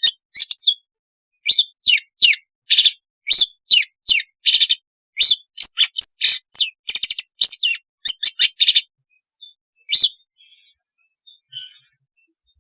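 Long-tailed shrike (cendet) singing a rapid series of loud, short, harsh notes, about two or three a second. The song stops about ten seconds in, and only faint scattered chirps follow.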